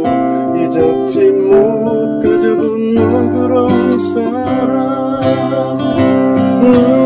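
A man singing a song in Korean, accompanying himself on a cutaway acoustic guitar.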